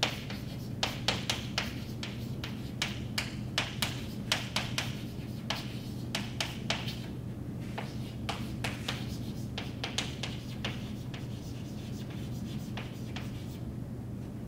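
Chalk tapping and scratching on a chalkboard as words are handwritten in quick short strokes, over a steady low hum.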